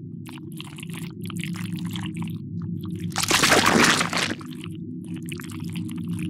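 Sci-fi sound design: a low steady drone under irregular wet, squelching, crackling effects, with a loud rushing burst a little past the middle that lasts about a second.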